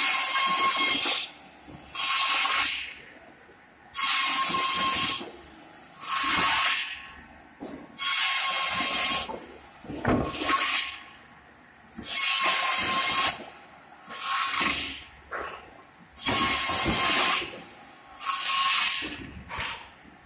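Automatic cross-cut saw's 700 mm circular blade cutting wooden boards to length, about ten cuts at roughly one every two seconds. Each cut is a loud, hissing rush lasting about a second, with the machine running more quietly between cuts.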